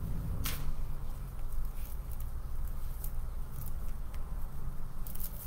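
Hands handling deco mesh and zip ties on a wreath board: a sharp click about half a second in, then a few fainter ticks and light rustles, over a steady low hum.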